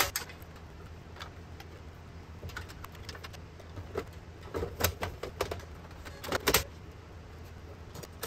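Clicks, knocks and metallic rattles of an HP dc5700 small-form-factor desktop's case and parts being fitted back together, with the loudest knocks a little after four seconds in and a sharp double knock about six and a half seconds in. A room fan hums steadily underneath.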